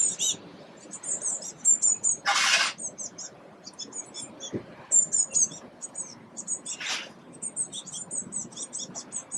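Blue tit chicks begging from a nest box: runs of rapid, thin, high-pitched cheeps throughout. Two short bursts of rushing noise break in, about two and a half and seven seconds in.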